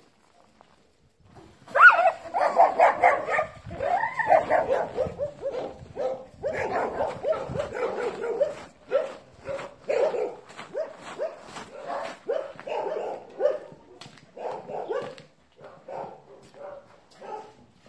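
Dogs barking: a long run of short barks that starts about two seconds in, dense at first and then coming about two a second.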